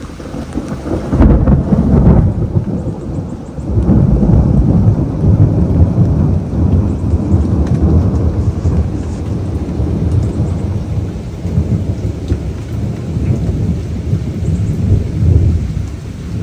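Deep, rolling thunder that swells about a second in, surges again near four seconds, and keeps rumbling on in uneven waves.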